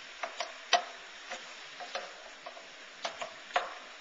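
A cooking utensil knocking and scraping irregularly against a skillet as food is stirred, about nine sharp clicks over a faint steady sizzle.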